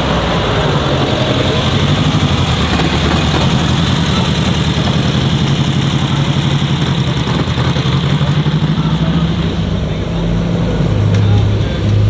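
Air-cooled flat-four engine of a lowered VW Beetle panel van running at low revs as it rolls slowly past, a steady low exhaust note that drops a little in pitch near the end.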